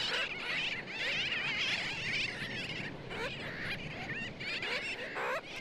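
A nesting colony of sooty terns calling, many birds at once in a continuous chorus of overlapping short calls.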